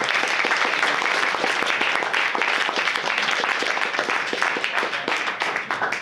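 Audience applauding: dense, steady clapping from many hands, dropping off suddenly at the end.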